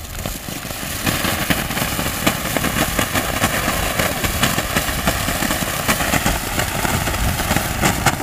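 A ground fountain firework ('Tiger' cracker) burning: a steady rushing hiss of spraying sparks, dense with small crackles, building up over the first second.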